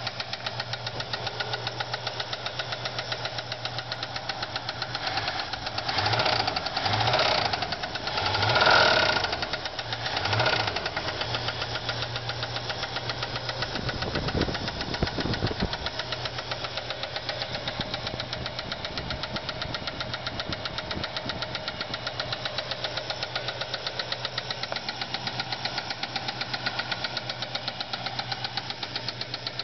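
Ford 302 V8 in a Fairlane idling with a rapid, even lifter tick, revved briefly a few times between about six and eleven seconds in. The tick comes from a bad lifter on a cam flattened after a spun camshaft bearing starved the heads of oil.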